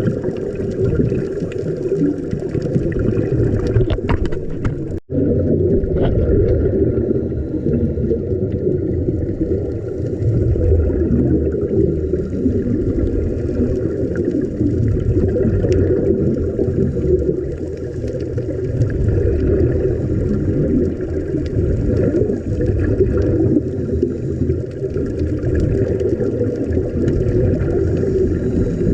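Steady, muffled underwater rumble and water noise picked up by a camera during a scuba dive, with a brief break about five seconds in.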